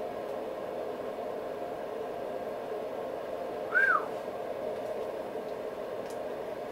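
One short whistled note about halfway through that rises and then drops in pitch, over a steady hum of room noise.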